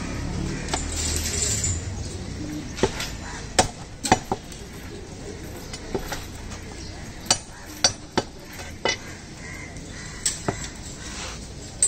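Sharp, irregular knocks and clinks of a butcher's knife or cleaver striking meat on a chopping block, about a dozen strikes with a slight metallic ring. A low rumble fills the first two seconds.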